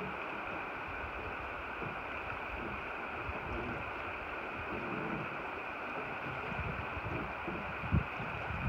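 Steady rush of river water running over a riffle, with wind buffeting the microphone and a brief thump near the end.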